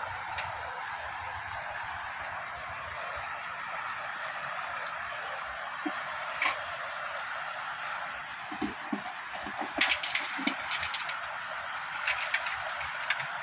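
Steady rush of water pouring over a small stepped weir into a stream. A few sharp clicks and rattles come about ten and twelve seconds in, from the stick-and-mesh fish trap being handled.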